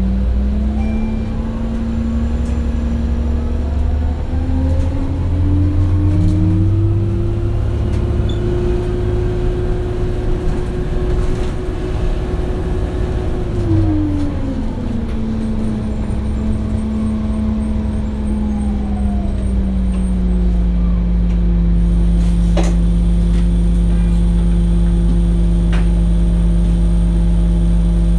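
2007 Orion VII diesel-electric hybrid bus standing at a stop, with a deep rumble throughout. Its drive note rises to a higher pitch over several seconds, holds, then winds back down about halfway through and settles to a steady idle.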